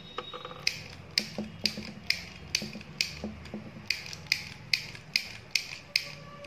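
Handheld stapler-style mini sewing machine being squeezed over and over, giving a sharp metallic click about twice a second from about a second in. Each press drives the needle through the cloth for one stitch.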